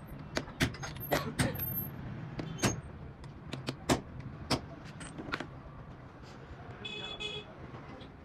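Hammer tapping on a car alternator's stator and housing: a run of sharp, irregular metal knocks that thin out after about five seconds, over a steady low hum.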